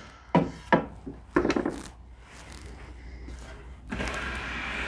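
Wooden pieces being knocked and shifted about on a workbench, with several sharp knocks in the first two seconds. Near the end a steady noise starts up.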